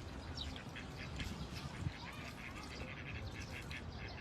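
A group of birds calling: many short calls overlapping, several a second.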